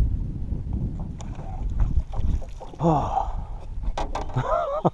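Wind rumbling on the microphone, with sharp knocks and clatter against a small boat as a landing net is worked for a hooked bass. There are two short wordless cries: a falling one about three seconds in and another near the end.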